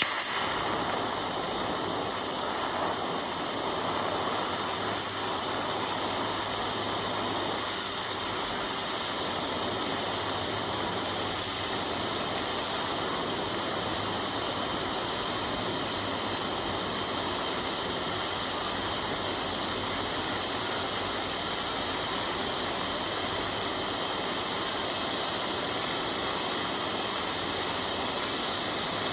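TIG welding arc running steadily, a constant even hiss with a faint hum, during an autogenous weld (no filler rod) joining two different metals of different thickness.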